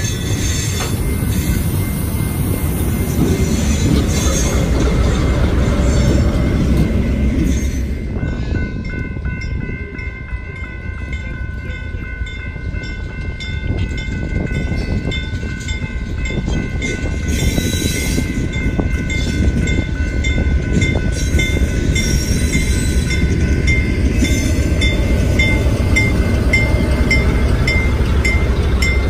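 Freight train tank cars rolling over a grade crossing. After about eight seconds the rumble drops away and the crossing's warning bell rings in a steady rhythm. Near the end the low rumble of a GE B23-7 diesel locomotive's 12-cylinder engine builds as it comes closer.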